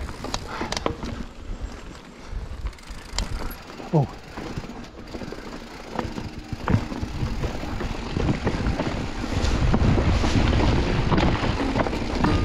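Mountain bike riding over a rough trail: the bike clatters and knocks over stones while wind rushes over the microphone, the rushing growing louder in the second half.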